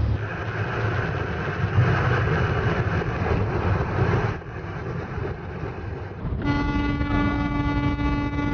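Road and engine noise of a vehicle on the highway, then from about six and a half seconds a BNSF freight locomotive's air horn sounding a long, steady multi-note chord.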